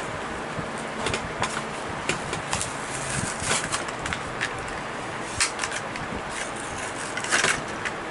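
Clear plastic blister and cardboard backing of a Hot Wheels car package crinkling and crackling as hands pull it open, with scattered sharp clicks and scrapes.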